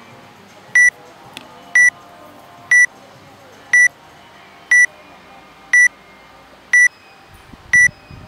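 Workout countdown timer beeping: short high beeps, one a second, eight times, counting down the last seconds before the workout starts.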